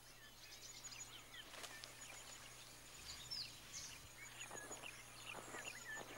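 Faint outdoor ambience of birds chirping: short high chirps and small whistled glides scattered throughout, over a low steady hum.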